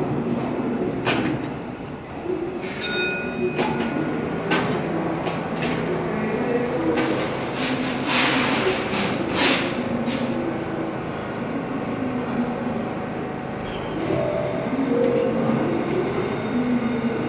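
Running noise of an R62A subway car heard from on board: a steady rumble with wheels clicking over rail joints, a brief wheel squeal about three seconds in, and a louder rushing noise from about eight to ten seconds in.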